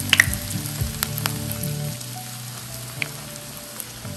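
Bread slices frying in hot ghee in a pan: a steady sizzle with scattered sharp pops and crackles.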